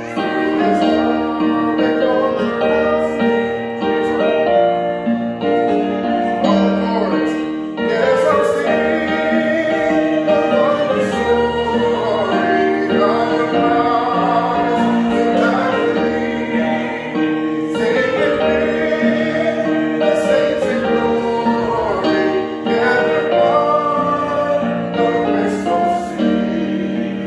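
Hymn with keyboard accompaniment: held chords at first, then a sung melody over them from about eight seconds in.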